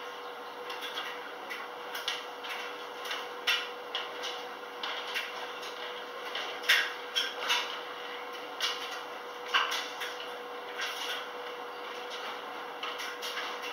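Speed Queen front-loading washer tumbling a load during the wash: the drum turns with a steady hum, while the clothes drop inside it with irregular soft knocks and clicks against the drum, a few louder ones about halfway through.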